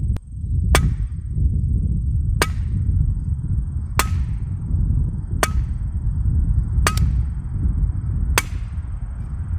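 Hammer blows on a metal mailbox spike anchor being driven into the ground: six sharp strikes with a short metallic ring, about one every second and a half, over a steady low rumble.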